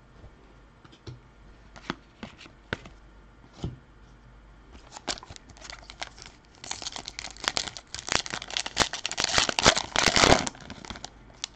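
Plastic wrapper of a hockey card pack being crinkled and torn open by hand. A few light taps and rustles come first, then about four seconds of dense crinkling and tearing starting about seven seconds in.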